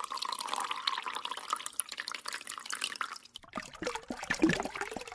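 Thin stream of water running from a kitchen tap and splashing into the sink, with many small drips and splashes. The sound breaks off briefly about three seconds in and comes back lower.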